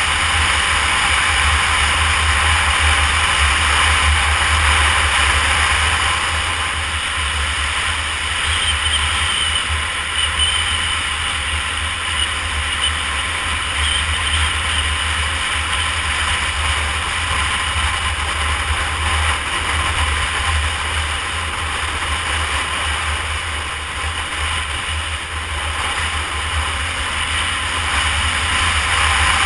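Steady wind rush and buffeting on the microphone of a 2013 Honda CBR250R ridden at road speed, with the bike's single-cylinder engine running under it. The rush eases slightly in the middle and picks up again near the end.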